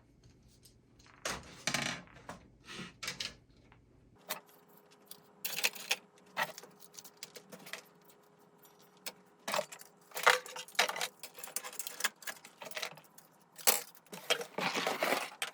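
Plastic fire alarm devices and detector bases being handled in a box: an irregular run of clicks, knocks and rattles, thickest near the end.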